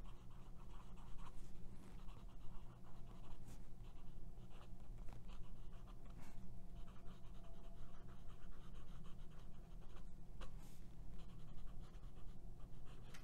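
Fine 14k gold nib of a Pelikan M400 fountain pen writing on Rhodia paper: faint, irregular scratching of pen strokes with small ticks, over a steady low hum.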